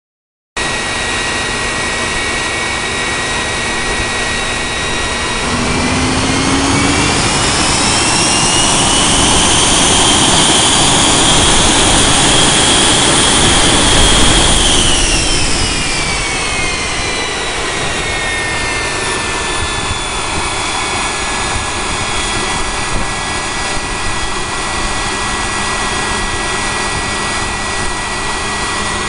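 Westinghouse J34 turbojet engine running on a test stand: a steady high whine over jet roar at idle. About five seconds in it is throttled up, the whine climbing and the roar growing louder; it holds at high power for about six seconds, then winds back down to idle over several seconds and runs steadily there.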